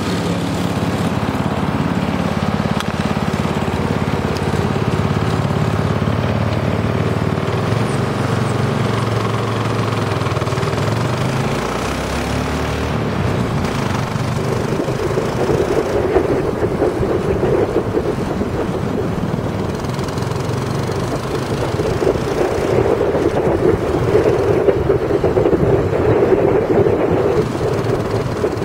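Engine of a homemade three-wheeled go-kart with a four-speed truck transmission, running as the kart drives. The revs climb for the first ten seconds or so, then fall away about twelve seconds in. From about halfway the kart is under way and its running turns into a louder, rougher noise.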